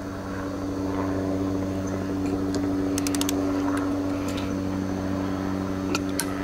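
A motor runs steadily off-picture, a constant hum with several overtones that grows slightly louder. A quick run of light ratchet clicks from a torque wrench comes about three seconds in, and a single click near the end.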